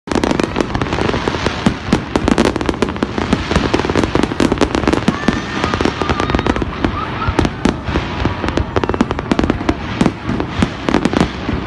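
Fireworks display: a dense, continuous barrage of bangs and crackles, many bursts a second with no let-up.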